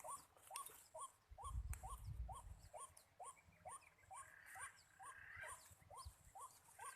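Faint, steady series of short upward-hooked animal call notes, about two or three a second, with a faint high ticking behind them.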